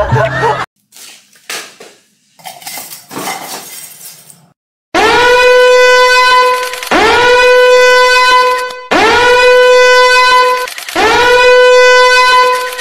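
A few faint crackling bursts, then a loud horn-like blast sounded four times. Each blast lasts about two seconds and slides up into the same steady, buzzy note.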